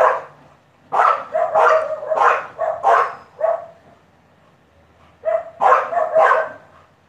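Old English bulldogs barking loudly: a quick run of about eight barks, a pause of a second and a half, then four more barks in a row.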